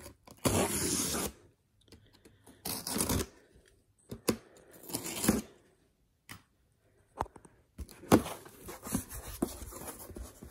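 A box cutter slicing through packing tape along a cardboard box's seam, in three short, loud strokes. This is followed near the end by a longer stretch of scraping and rustling of the cardboard and tape.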